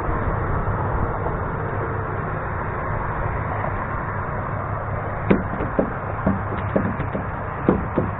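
A series of about eight sharp, irregular knocks on wood, starting about five seconds in, over a steady rushing background noise.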